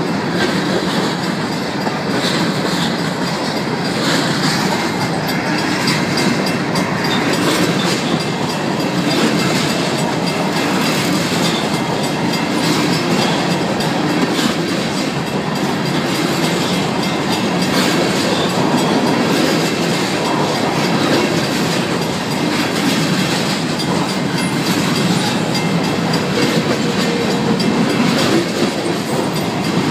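Covered hopper cars of a freight train rolling past close by, a steady run of wheel clatter with clicks over the rail joints. The grade crossing's mechanical bells ring along with it.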